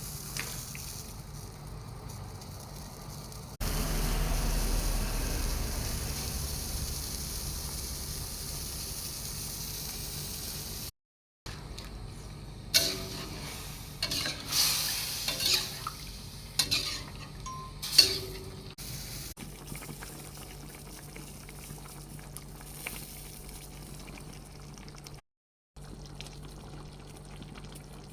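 Tofu simmering in a pan of sweet soy sauce, a steady bubbling and hissing of liquid. It is louder for a stretch early on, then sharp clinks and knocks of a utensil stirring against the pan come near the middle. The sound cuts out briefly twice.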